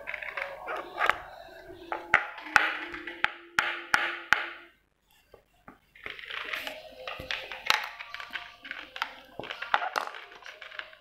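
Angora cat crunching dry kibble from a plastic bowl: a run of sharp clicks and crunches, broken by a gap of silence lasting about a second, about five seconds in.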